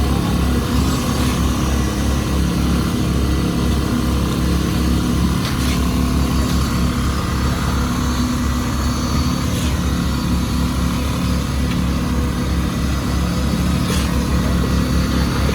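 Heavy truck engine running steadily at a constant speed, with a few faint ticks over it.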